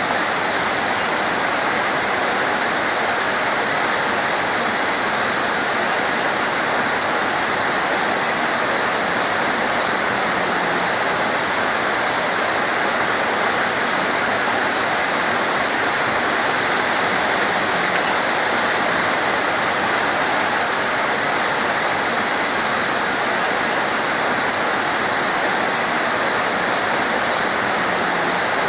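Torrential rain falling as a steady, dense hiss, with two faint ticks, one about a quarter of the way in and one near the end.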